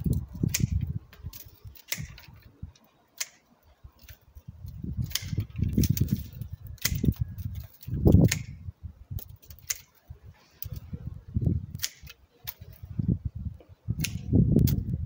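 Hand pruning shears snipping thin peach shoots: sharp clicks at irregular intervals, roughly one a second, with a low rumble coming and going underneath.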